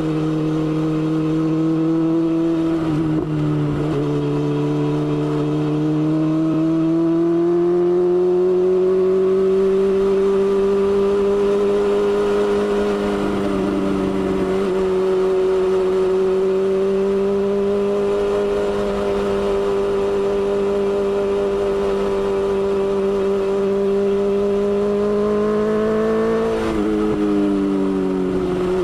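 BMW S1000XR's inline-four engine running under way on the road. Its pitch dips a few seconds in, climbs slowly and holds steady, then drops sharply near the end.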